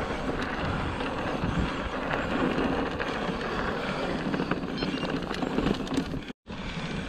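Orbea Rallon mountain bike rolling along a dirt track: a steady rush of wind on the camera microphone mixed with tyre rumble and small rattles of the bike. The sound drops out completely for a moment about six seconds in.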